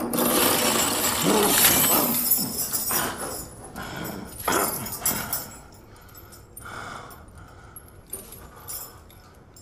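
A man crying out loudly, with the chain on him clinking. The cry is loudest over the first few seconds, then fades into scattered softer cries and chain rattles.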